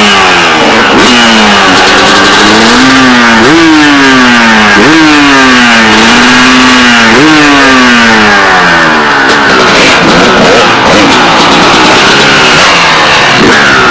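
Loud two-stroke motocross bike engine revving hard in repeated bursts. Its pitch jumps up and then sags away several times as the rider works the throttle through the sand.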